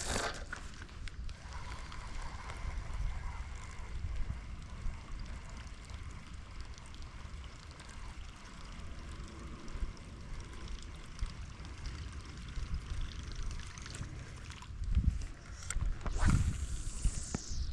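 A Whopper Plopper topwater lure being reeled across the water, its spinning tail plopping and gurgling, over a low rumble of wind on the microphone. A brief loud swish comes about 16 seconds in.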